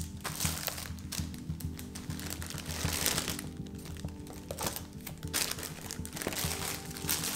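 Background music, with plastic packaging crinkling and rustling as groceries are lifted out of a tote bag, loudest about three seconds in and again near the end.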